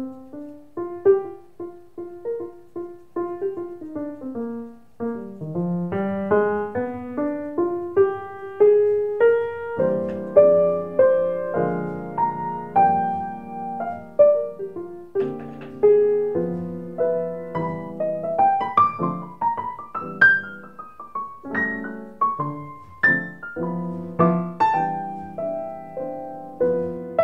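Background piano music: single notes and chords struck one after another in a flowing melody.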